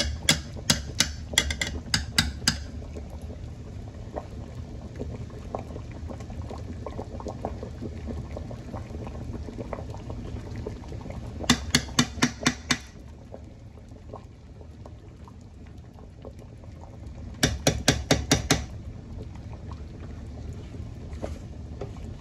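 Chicken broth boiling in a large enamel stockpot, with a steady low bubbling. Three times it is broken by a quick run of sharp taps, about six to eight each: the spoon rapped on the pot's rim to knock dumpling dough off into the broth.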